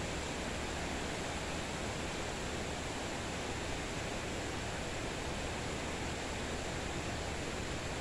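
Steady rain falling, an even hiss with no single drops standing out.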